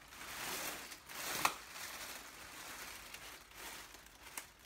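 Inflated plastic air-pillow packaging worn as a suit, crinkling and rustling as the wearer moves and poses, with a sharp crackle about a second and a half in.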